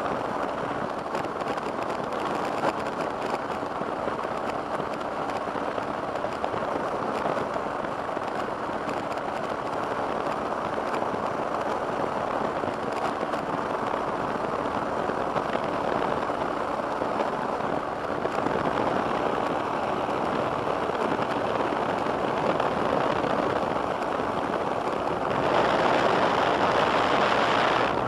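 Two-stroke microlight engine running steadily in flight, heard under a strong rush of wind. The sound gets louder and brighter for the last couple of seconds.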